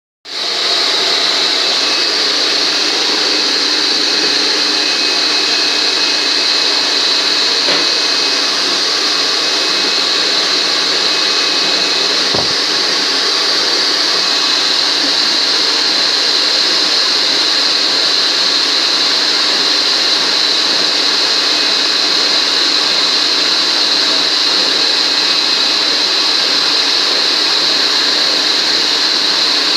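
Vacuum cleaner running steadily, a high whine over the rush of its air.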